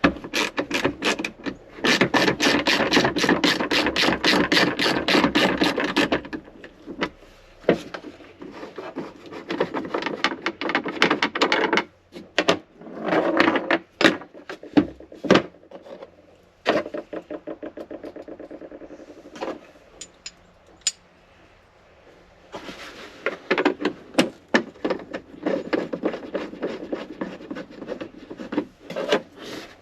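Hand-tool work on a Jeep hardtop roof fastener: fast, even clicking with rubbing in two spells of several seconds, with scattered knocks and scrapes between, as the fastener is turned out or in.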